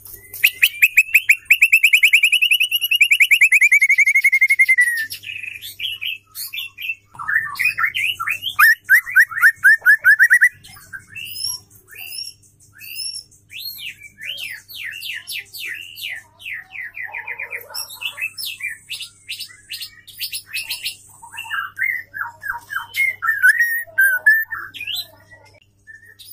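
Female white-rumped shama singing a long, varied song of rapid trills, repeated whistled notes and high rattles. It opens with a fast trill that rises and then falls over about four seconds.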